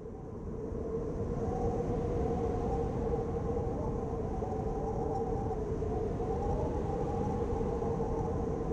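Low ambient drone fading in over about a second, then holding steady: a deep rumble with a held tone and a slowly wavering higher tone above it.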